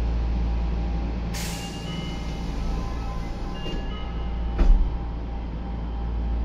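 Nagoya Municipal Subway Meijo Line 2000 series train heard from inside the car while running, with a steady low rumble. A hiss of air starts about a second and a half in and lasts about two seconds, with faint high tones alongside it. There is a single knock near the end.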